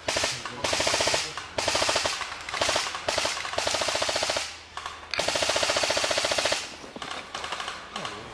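Airsoft gun firing fully automatic, about six bursts of rapid clicking shots, the longest lasting about a second and a half around five seconds in. Quieter scattered shots follow near the end.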